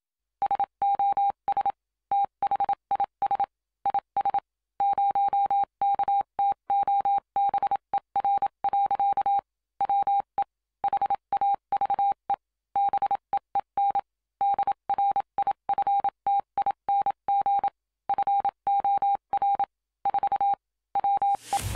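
Morse code: a single steady beep tone keyed on and off in short and long pulses, like a radio telegraph signal. Music comes in right at the end.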